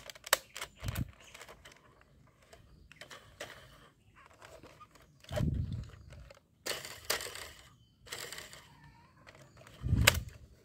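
Plastic toy guns being handled: scattered clicks and knocks, a few dull thumps as they are picked up or set down, and brief rustling.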